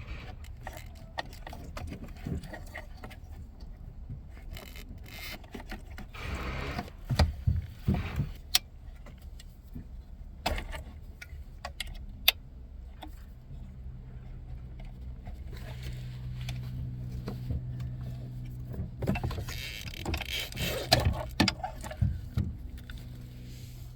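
Clicks and rattles of plastic wiring connectors and dash trim being handled and unplugged behind a truck's radio, in scattered bursts. A low steady hum comes in about halfway through.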